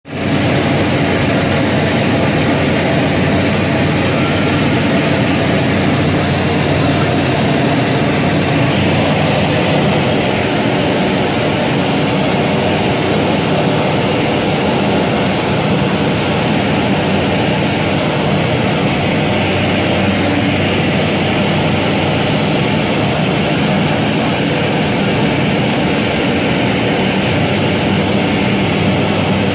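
Single-engine propeller engine of a Bristell light aircraft running steadily in flight, heard inside the cockpit as a constant drone with a hiss over it.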